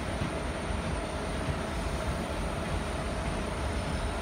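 Passenger train running along the track, a steady rumble of wheels on rails with a faint steady whine.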